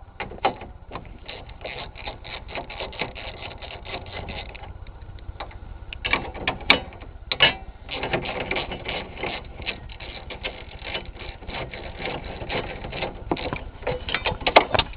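Ratchet wrench clicking in long rapid runs, with a pause of a few seconds and some separate knocks near the middle, as bolts on a rusty car's hood latch and latch support are worked loose.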